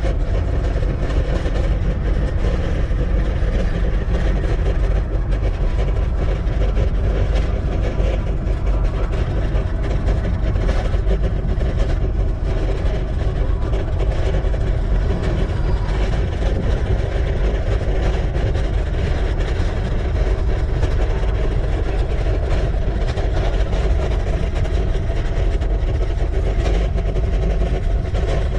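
Steady rush of wind buffeting a bicycle-mounted action camera's microphone while riding, loud and heavy in the low end, with some faint steady tones mixed in.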